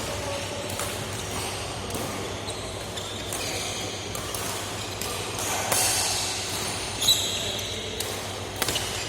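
Basketball game on an indoor court: scattered sharp knocks of the ball bouncing and a few short high squeaks, over a steady echoing hall background.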